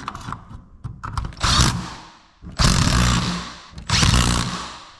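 A handheld power driver running in three short bursts, each about a second long and dying away, as fasteners are driven into the garage door hardware.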